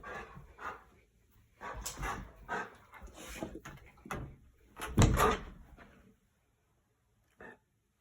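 Golden retriever vocalizing excitedly in uneven bursts, the loudest about five seconds in, falling quiet about a second later.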